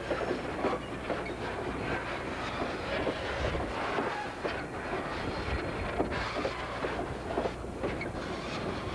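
Freight train passing: the wagon wheels clatter and knock irregularly over the rails, over a steady low rumble from the diesel locomotive approaching.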